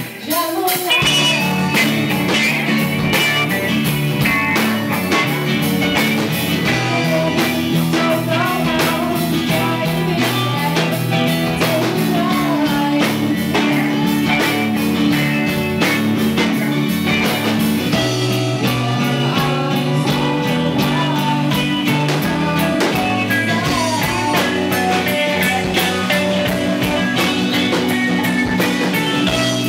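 A live rock band playing a song: guitars, bass and drums, with a woman singing.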